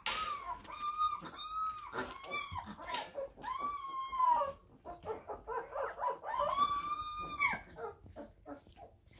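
Young Labrador puppies whining in high-pitched cries: several short ones in quick succession at first, then a longer drawn-out cry about four seconds in and another about seven seconds in.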